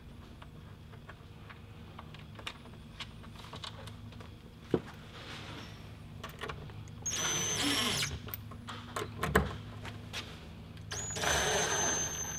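Cordless screw gun driving screws into a plastic rope-ladder clamp in two short runs, about a second each: a brief whine near the middle and another near the end. The screws are only being started, not yet driven home. Before the first run there are handling clicks and one sharp knock.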